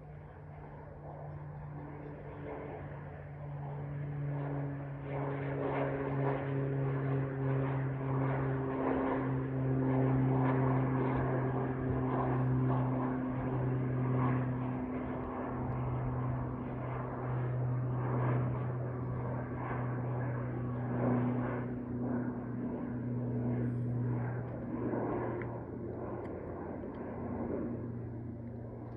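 Socata TBM 850 single-engine turboprop (Pratt & Whitney PT6A) climbing out after takeoff: a steady propeller and engine drone with a low hum. It grows louder over the first several seconds, is loudest around the middle, then slowly fades as its pitch sinks slightly while the plane flies away.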